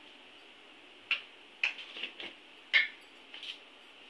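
A few light clicks and taps of kitchen utensils, starting about a second in, over a faint steady hiss.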